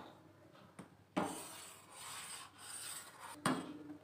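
Metal spoon scraping and rubbing along the inside of a stainless steel pot while stirring milk. Two strokes, one about a second in and one near the end, each starting with a sharp knock of the spoon against the pot.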